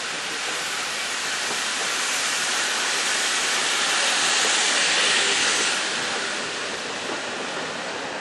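A steam-hauled train passing close by: GWR Small Prairie tank locomotive 5553 and its coaches go past with a steady rushing noise. The noise swells to its loudest about halfway through and then eases, with no separate exhaust beats.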